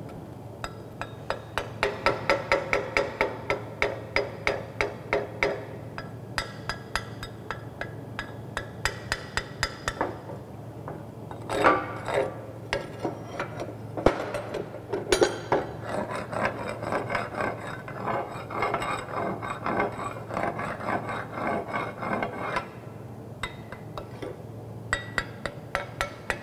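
Chipping hammer striking a steel fillet weld bead to knock off the slag: quick metallic taps at about four a second, then after about ten seconds slower, irregular knocks and scrapes with the plate ringing, thinning out near the end.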